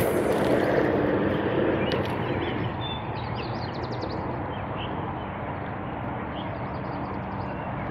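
A fishing rod swishing through a cast at the start, then steady outdoor background noise with a few short bird chirps.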